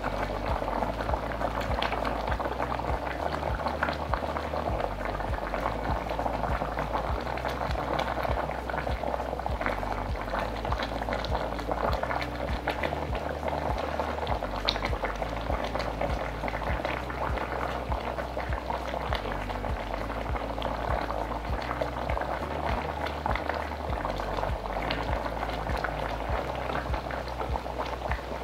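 Thick fish curry boiling in the pot, a steady dense bubbling and popping of the gravy, over a low steady beat of background music.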